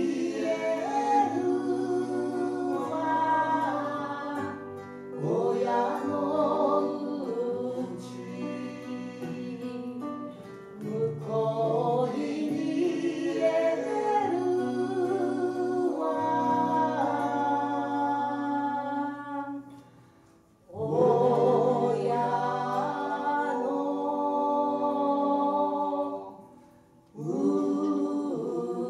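Live folk trio singing in harmony to two acoustic guitars. The music stops briefly twice, about two-thirds of the way in and again near the end.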